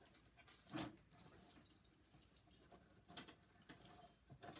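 Faint rustling and light clicks of a dog shifting about while tangled in its lead, with one louder rustle just under a second in.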